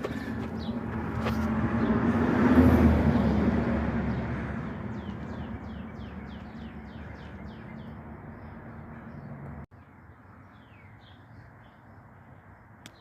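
A motor vehicle passing by, swelling to its loudest about three seconds in and then fading away. As it fades, a bird chirps a quick run of short notes. The background drops off abruptly near the end.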